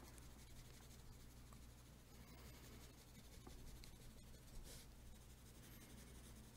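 Faint scratching of a blue coloured pencil shading lightly on paper, almost at the edge of silence, over a steady low hum.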